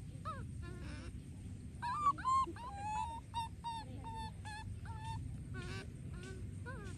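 Monkey calling: a run of short, high-pitched calls, about two a second, over a steady low background noise.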